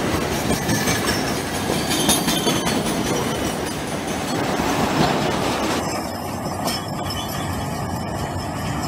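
Loaded freight flatcars rolling past close by, their steel wheels clattering over the rails. About six seconds in the sound turns duller as the train draws away.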